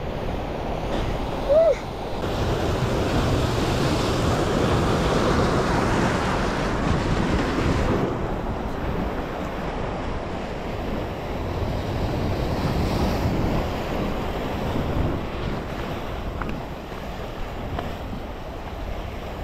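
Sea surf washing against the boulders of a rock jetty, with wind buffeting the microphone. A brief voice-like note sounds about one and a half seconds in.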